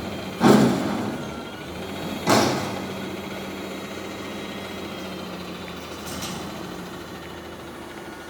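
Garbage truck running steadily while a metal dumpster is slammed against it as it is emptied: two loud bangs about half a second and two seconds in, then a fainter clank around six seconds.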